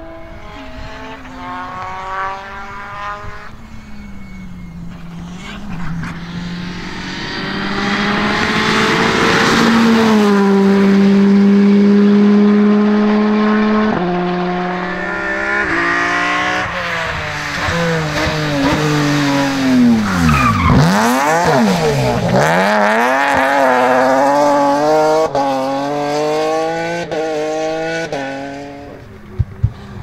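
Rally car engines under hard acceleration, the note climbing and then dropping at each upshift several times. The loudest stretch is a held high-revving run around ten seconds in. Around twenty seconds in the pitch plunges and climbs back twice, and the revving fades near the end.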